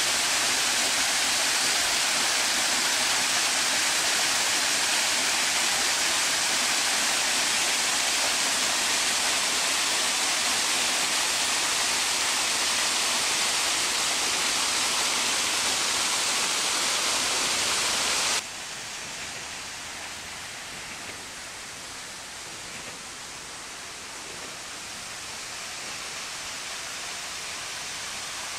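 Water pouring down a stepped rock cascade into a pond: a steady, bright rushing. About two-thirds of the way through it drops abruptly to a softer, duller rush, the same falls heard from further off.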